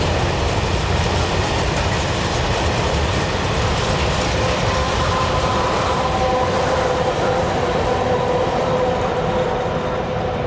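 A freight train of coal hopper wagons rolling past, its wheels clattering over the rail joints. From about halfway in, the SNCF BB 67000 and BB 67200 diesel locomotives pushing at the rear of the train go by, adding a steady engine hum with several held tones.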